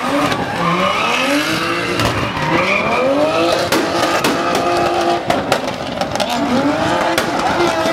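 BMW E30 drift car's engine revving up and down again and again while its rear tyres squeal, spinning in a smoky drift. A few sharp pops cut through about halfway.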